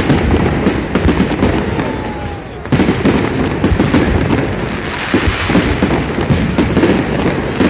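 Fireworks display: rapid, overlapping bangs and crackles of shells bursting, with a fresh dense volley starting about three seconds in.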